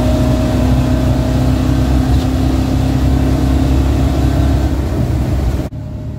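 383 small-block Chevy V8 of a Chevy dually pickup, heard from inside the cab, pulling at a steady, held pitch under loud road and wind noise. About five and a half seconds in, the sound cuts suddenly to a quieter, duller engine drone.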